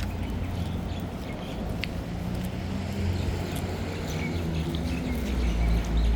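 Street traffic running steadily as a low rumble, with faint short bird chirps above it; a vehicle's low rumble grows louder near the end.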